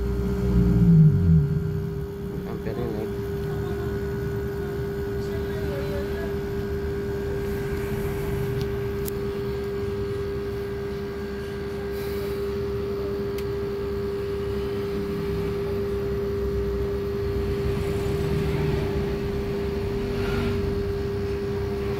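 Panasonic inverter air conditioner's compressor running under a pressure test after oil was added through the suction line: a steady hum with one constant mid-pitched tone and a low rumble underneath. A few handling knocks in the first second or so.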